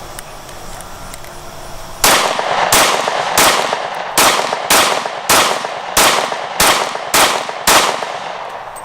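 A .40 caliber pistol fired ten times in a steady string, about one shot every 0.6 seconds, starting about two seconds in, each shot sharp with a short ringing tail.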